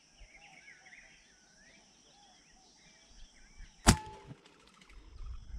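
Faint birds chirping, then about four seconds in a single sharp shot from a scoped rifle, fired at a white-winged dove.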